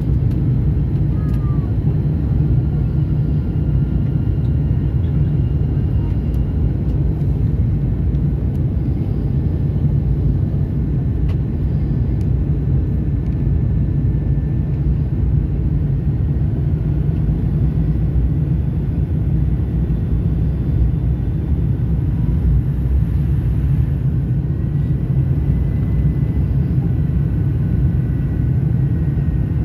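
Steady low cabin noise inside a Fokker 100 airliner on its approach: the rear-mounted Rolls-Royce Tay turbofans and the airflow over the fuselage, with faint thin whines above the rumble.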